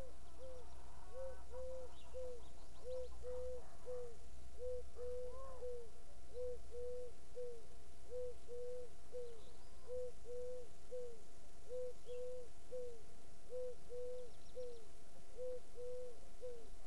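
A bird calling: a long, even run of short, low, pitched notes in quick groups of two and three, with a few faint high chirps from other birds.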